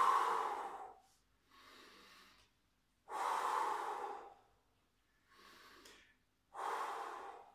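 A man breathing deeply in and out through an open mouth: three long, loud breaths about three seconds apart, with quieter breaths between them.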